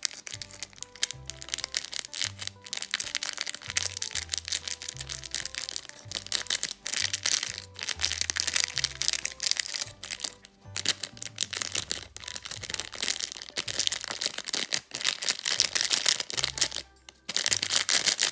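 Clear plastic sachet crinkling and crackling as hands squeeze and knead slime powder out of it into a cup of water, briefly pausing near the end. Background music with a bass line plays under it.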